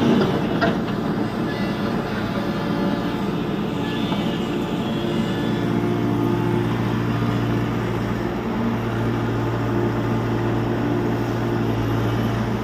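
Tata Hitachi EX70 Super Plus excavator's diesel engine running steadily at working speed, with a short clatter about half a second in.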